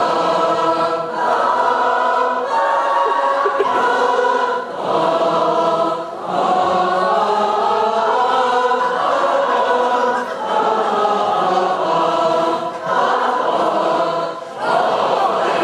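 A large audience singing a tune together as a crowd choir. The notes are held in short phrases, with brief breaks every couple of seconds.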